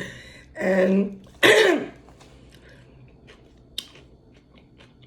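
A woman clears her throat with one short, harsh cough, followed by a few faint mouth clicks.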